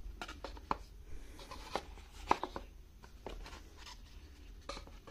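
Cardboard perfume gift-set box being handled as its lid is fitted back on: scattered light taps and clicks with soft rubbing of cardboard.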